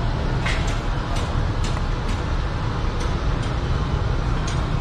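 Street ambience: a steady low rumble like passing traffic, with a few light clicks and knocks scattered through it.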